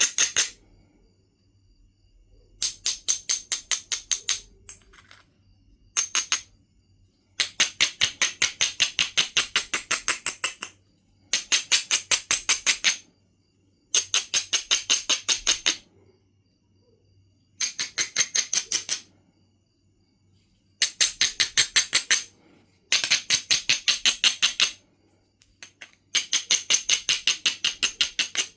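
Abrading stone rubbed fast back and forth along the edge of a Knife River Flint piece, grinding the platforms before flaking. It goes in bursts of rapid gritty strokes, about eight a second and one to three seconds at a time, with short pauses between.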